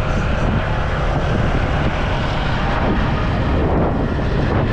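Steady rush of wind on the microphone and road noise from riding on a motorbike taxi through city traffic.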